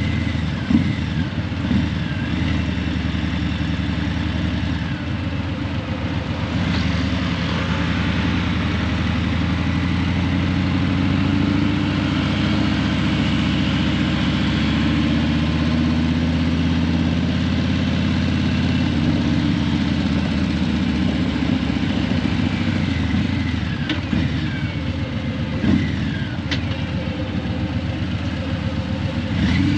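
Harley-Davidson Breakout 117's Milwaukee-Eight 117 V-twin running through Vance & Hines Eliminator 300 slip-on mufflers at low revs, the engine speed rising and falling gently through the middle.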